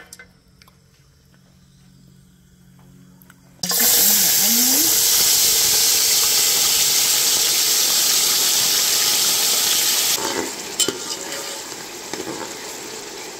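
Chopped onion tipped into hot oil in a metal pot: a loud sizzle starts suddenly about three and a half seconds in. After about six seconds it eases to a quieter frying sizzle, with a few clinks of a metal spoon stirring.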